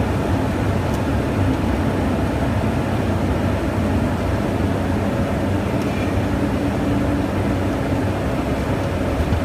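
Cockpit noise of a Cessna Citation CJ3 in the landing flare over the runway: a steady rush of airflow mixed with the running of its Williams FJ44 turbofan engines.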